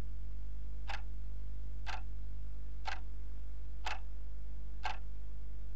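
Clock ticking steadily once a second, five ticks, over a continuous low electrical hum.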